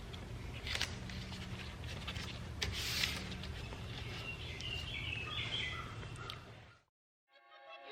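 Painter's masking tape being handled on a car body: sharp clicks and a louder tearing rip about three seconds in, over a steady low hum, with birds chirping in the background. The sound cuts off suddenly near the end and music begins.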